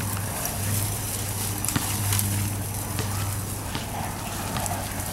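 Dry leaf litter and twigs crackling and snapping under the tyres of RC scale crawlers, with scattered clicks over a steady low hum.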